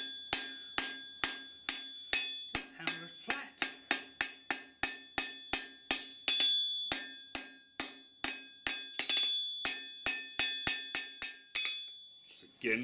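Hand hammer striking red-hot blade steel on an anvil, about three blows a second, each blow leaving a ringing tone from the anvil, as the blade's tip is forged over the anvil's edge to enlarge its curve. The blows stop near the end.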